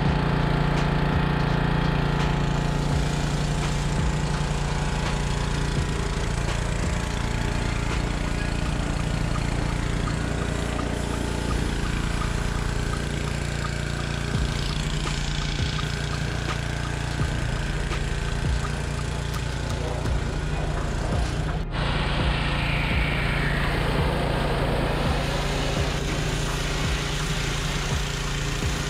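An engine running steadily at a constant speed, with a brief break about three-quarters of the way through.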